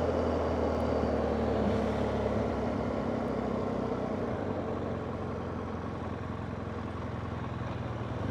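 BMW motorcycle running on the road with wind and road noise, heard from the rider's microphone; the steady engine hum grows gradually quieter over the seconds.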